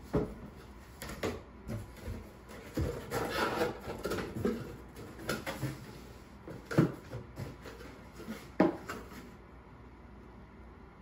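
Irregular knocks and rubbing, like wood or household objects being handled, with a stretch of scraping about three to four seconds in. The knocks stop a little after nine seconds.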